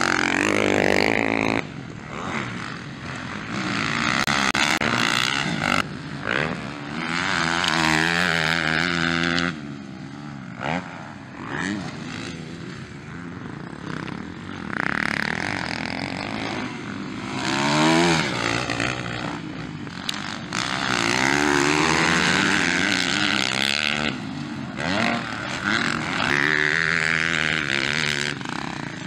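Motocross dirt bike engines revving hard as the bikes race past one after another, the pitch rising and falling with each burst of throttle.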